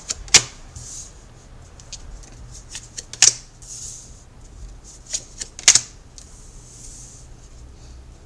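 Tarot cards being handled and laid out on a table: a few sharp card snaps, with soft swishes of cards sliding in between.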